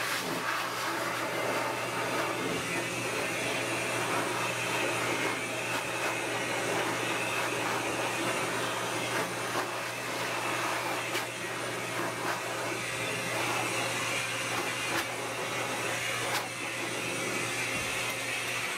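High-velocity pet dryer blowing steadily: a constant motor hum under a rush of air.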